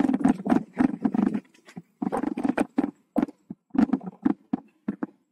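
Mountain bike clattering and knocking as it rides fast over a bumpy dirt trail, in irregular bursts with brief quiet gaps.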